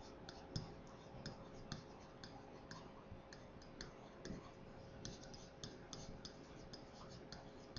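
Faint, irregular clicks and taps of an electronic pen stylus on its writing surface while handwriting words, over a faint steady hum.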